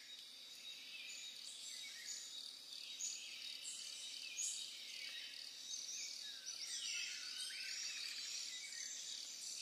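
Faint nature ambience: birds chirping and calling over a steady high-pitched insect drone.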